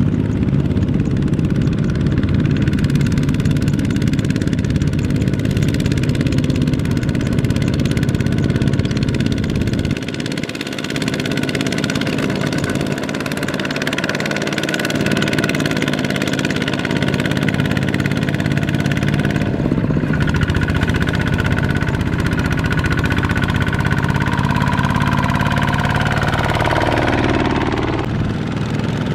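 Kubota RT155 power tiller's single-cylinder diesel engine running steadily under load, pulling a loaded trailer through mud. The engine speed changes near the end, its pitch rising and falling.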